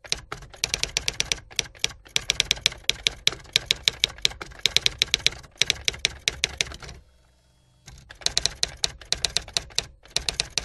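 Typewriter keys struck in fast runs of clacks, with a pause of nearly a second about seven seconds in.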